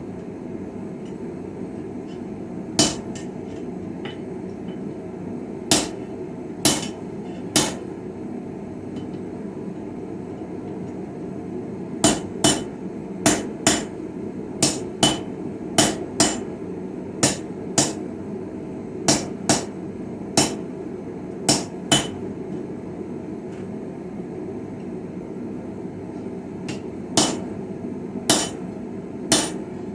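Hand hammer striking steel on a Viking-style anvil while forging a chisel: sharp, ringing blows. A few scattered single strikes come first, then a run of about fifteen blows at roughly one to two a second through the middle, then a few more near the end, over a steady low rushing noise.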